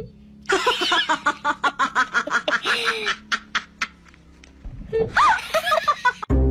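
A person laughing in a rapid string of short 'ha' bursts, about five a second, followed about five seconds in by a second brief laughing outburst with sliding pitch, over a faint steady low hum that fades out partway through.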